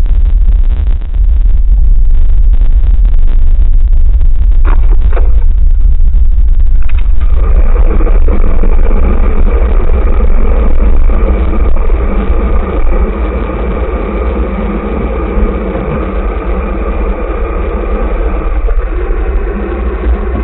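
Heavy, loud low rumble of wind and road noise on the microphone of a camera moving along a street. About seven seconds in, a denser mixed hum joins it.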